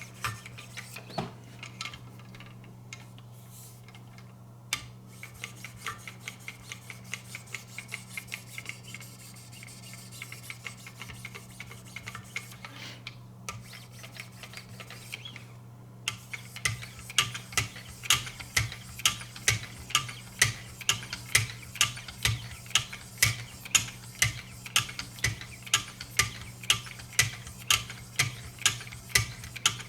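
3000-grit diamond sharpening stone stroked along a VG-10 knife blade on a guided sharpening system, the last diamond stage before polishing. The strokes are light and faint at first; from about halfway they become an even run of sharp scraping strokes, about two a second. A steady low hum runs underneath.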